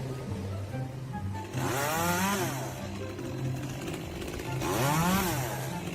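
A small engine revs up and falls back twice, over background music.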